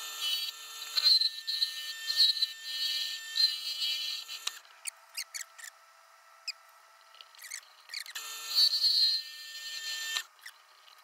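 A turning tool cuts into the inside of a small black locust bowl spinning on a small Harbor Freight benchtop lathe, making a hissing scrape for about four seconds. Then comes a pause with a few light clicks, the lathe still running, and another short cut starts about eight seconds in.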